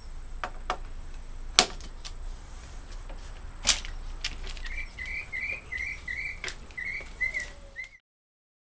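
Scattered sharp metal clicks and clacks from the quick-release mount's cam-lock nuts being flipped and the aluminum mount plate handled on the motorcycle's luggage rack, the loudest about one and a half seconds and three and a half seconds in. A bird chirps repeatedly in the background from about halfway on, and the sound cuts off shortly before the end.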